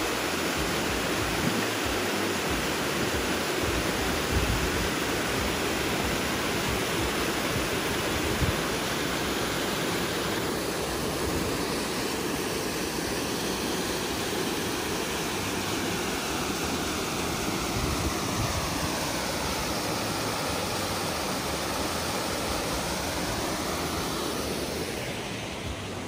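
Small waterfall cascading down a sloping bedrock chute: a steady, even rush of falling water that eases a little near the end.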